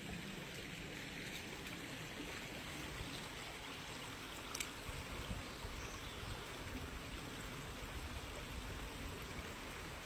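Shallow creek water running steadily over stones. A single short click comes about four and a half seconds in.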